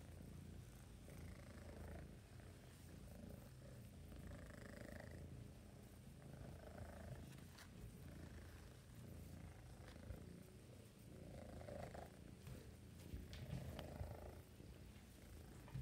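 Two four-month-old kittens purring: a faint, low, steady rumble.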